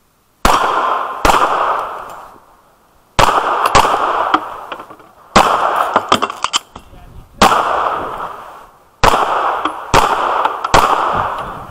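Semi-automatic pistol shots fired close by, about nine in all, in pairs and singles a second or more apart, each followed by a long echo.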